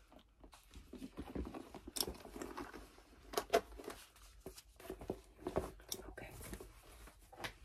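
Handling noise: rustling with scattered small clicks and knocks, the loudest a little over three seconds in.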